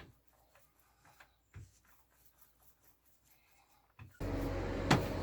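Faint scattered taps and clicks of small objects being handled. About four seconds in, a louder steady background hum cuts in suddenly, with one sharp click near the end.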